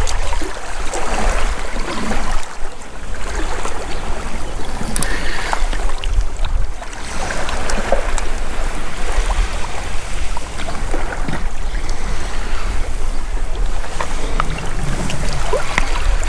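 Wind buffeting the microphone in a steady, pulsing rumble, with small waves lapping on a rocky shore.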